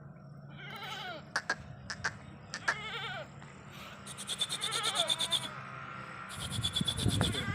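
Sirohi goat kids bleating repeatedly, short calls a second or two apart. A high-pitched rattling buzz sounds twice in the second half.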